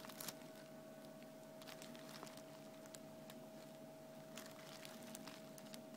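Near silence: room tone with a faint steady hum and a few faint scattered ticks.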